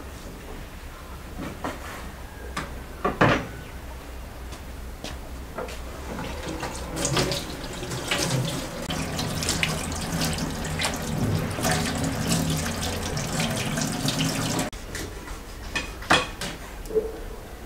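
Water running from a tap and splashing for several seconds, then cutting off suddenly. A few sharp knocks come before it, as a knife meets a wooden cutting board.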